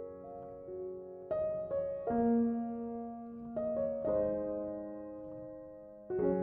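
Slow, gentle piano music: soft chords and single notes struck every second or so and left to ring out.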